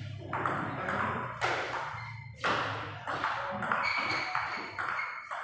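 Table tennis rally: the celluloid ball clicking back and forth off the paddles and table, a quick run of sharp ticks about two a second, each with a short echo.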